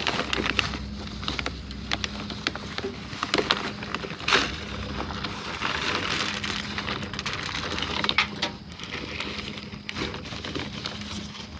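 Rummaging through trash in a packed dumpster: bags and rubbish rustling and crinkling, with many short knocks and clatters as items are shifted. A steady low hum runs underneath.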